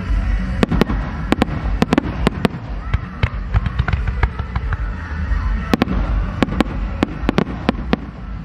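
Fireworks display: a dense, irregular run of sharp bangs and cracks, several a second, from shells and comets fired in quick succession, over a constant low rumble.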